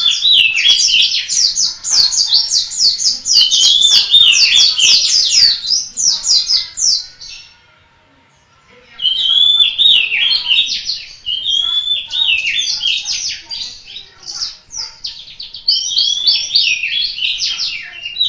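Pleci white-eye singing a long, rapid, high twittering song in full voice. There are two long bursts with a pause of about a second and a half in the middle.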